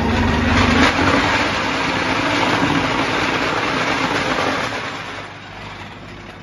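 Concrete block-making machine running through a moulding cycle: a loud, steady mechanical noise that drops away about five seconds in. A low hum stops about a second in.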